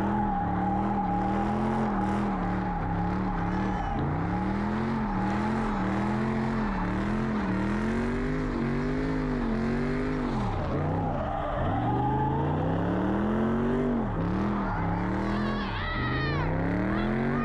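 Dodge Scat Pack's V8 engine driven hard, its pitch climbing and dropping over and over as it revs up and the driver lets off or shifts. High squeals come in near the end.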